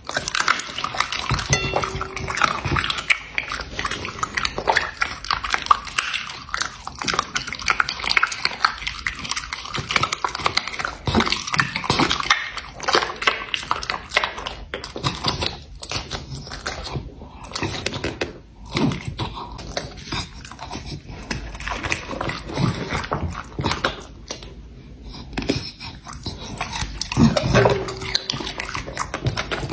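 A dog chewing a piece of raw meat: a dense run of wet smacks and clicks of jaws, lips and tongue, louder near the end.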